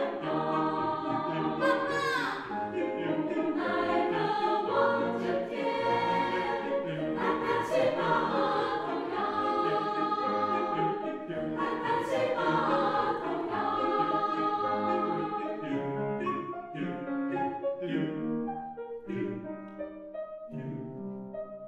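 Mixed choir of men's and women's voices singing in harmony, a choral arrangement of a Taiwanese campus folk song. The singing thins out and grows quieter over the last few seconds.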